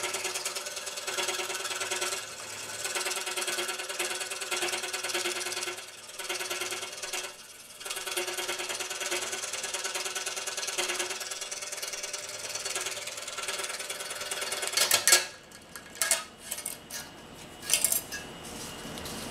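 Scroll saw running and cutting a thin aluminium sheet, with a steady buzz that dips briefly twice. Near the end the saw stops, and a few sharp clicks follow as the cut-out metal propeller is handled.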